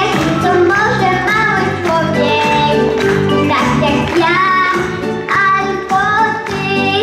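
A young boy singing into a microphone over amplified backing music with a steady beat.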